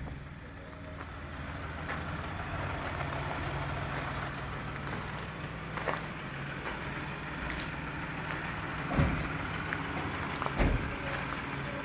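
A MINI Countryman's 1.5-litre three-cylinder petrol engine idling with a steady low hum. Footsteps crunch on gravel a few times.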